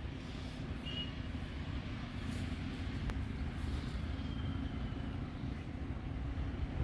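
Steady low outdoor rumble, with a few faint, short high chirps.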